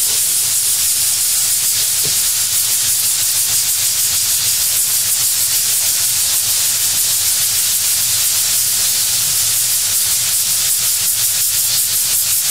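Steam iron hissing steadily as it is pressed through a terry towel onto carpet to heat a stain cleaner, with the fast scratching of a stiff hog-hair brush scrubbing the carpet fibres.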